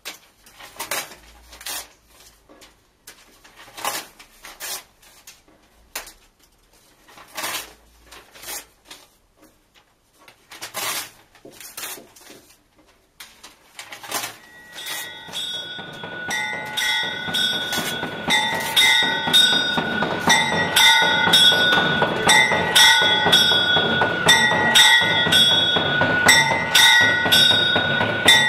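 Book pages being torn by hand, short ripping noises about a second apart. About halfway through, a looping pattern of bell-like electronic tones fades in and grows to be the loudest sound, and it cuts off at the very end.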